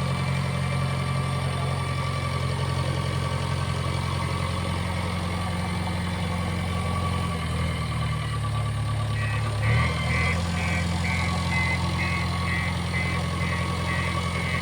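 JCB 3DX backhoe loader's diesel engine running steadily, its pitch dropping for about two seconds partway through. A rapid high beeping starts about two-thirds of the way in and keeps going.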